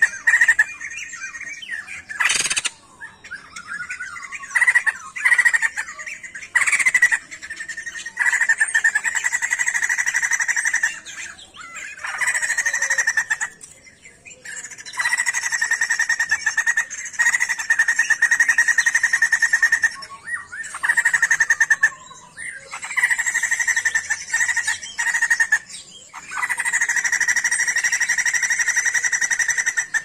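Sumatran laughingthrush calling: about a dozen loud, rapid rattling, chattering phrases, each one to three seconds long, with short pauses between them.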